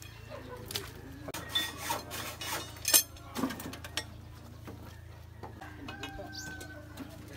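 Wooden planks and steel bars scraping and knocking as salvaged lumber is handled and pried apart, with scattered clicks and a sharp knock about three seconds in.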